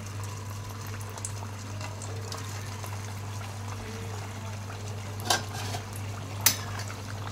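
Aloo sabudana tikkis deep-frying in hot peanut oil: a steady sizzle and bubbling over a constant low hum, with two sharp clicks a little over a second apart late on.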